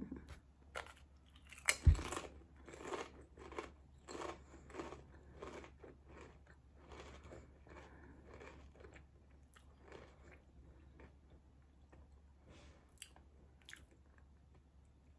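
A bite into a crisp Lay's potato chip with a sharp crunch about two seconds in, then crunchy chewing at about two chews a second that grows fainter over the following seconds.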